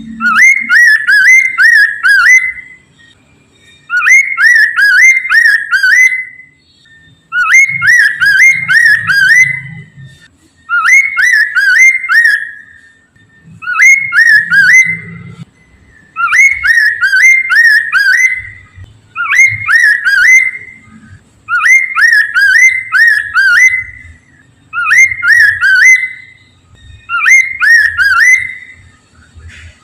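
Poksay mandarin (Chinese hwamei) singing: loud phrases of rapid, whistled notes, each about two and a half seconds long, repeated about every three seconds.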